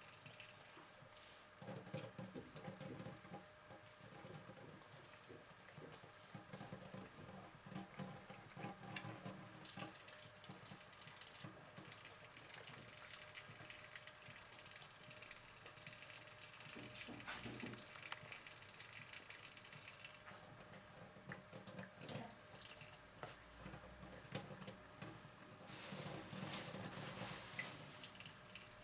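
Faint trickle of a thin stream of water running from a kitchen tap into the sink, with many small ticks of drips and splashes as a cat laps at the falling water.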